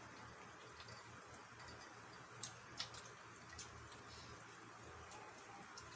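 Near silence: steady room hiss with a few faint, sharp clicks, two of them close together about two and a half to three seconds in.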